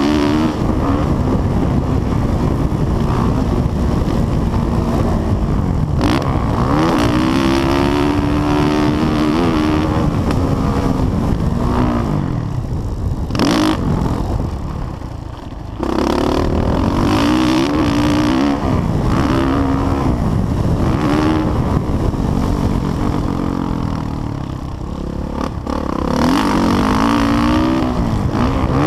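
Suzuki 450 four-stroke single-cylinder dirt bike engine revving up and down as the throttle is worked lap after lap, heard from a helmet-mounted camera with wind rush. About fourteen seconds in the throttle is shut for a couple of seconds, then snaps back open.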